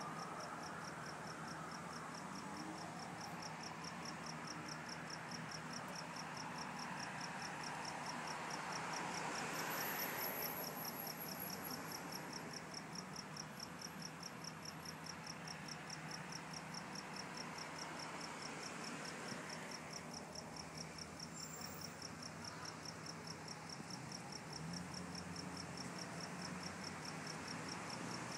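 Crickets chirping in a steady, even rhythm over a constant background hum.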